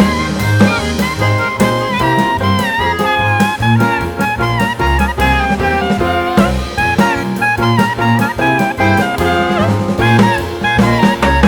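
Background music: upbeat jazz with saxophone and brass melody over a steady drum-kit beat.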